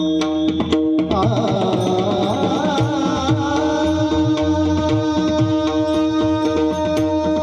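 Mridang (two-headed barrel drum) playing a steady rhythm of strokes over a sustained drone, with a singing voice with vibrato coming in about a second in.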